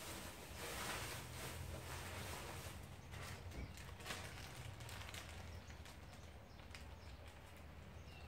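Faint scraping and light taps of hands handling small brake parts at a truck's front brake caliper, over a low steady hum.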